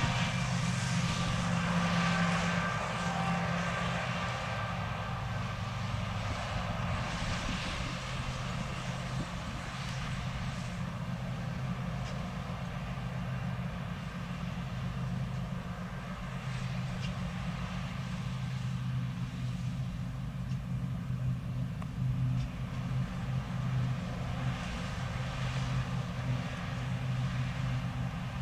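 Fendt 6275 L combine harvester running steadily at work: a constant low engine hum with an even rushing hiss over it.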